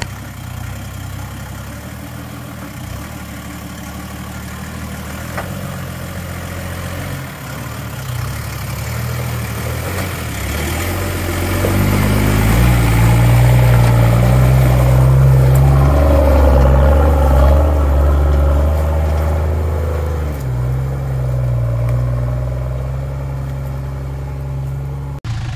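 Toyota 2H four-litre pushrod diesel with an aftermarket turbo, in a Jeep truck, running at low revs as the truck crawls through a rocky creek. From about halfway it works harder and louder for several seconds, then eases off before a sudden cut near the end.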